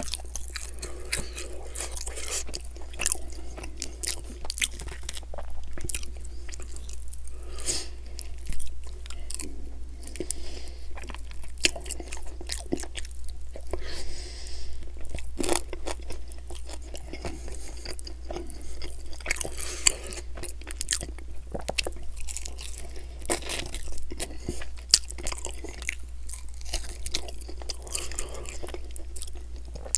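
Close-miked eating of sauce-covered buffalo chicken wings: biting, chewing and mouth smacking, with frequent sharp clicks, over a steady low hum.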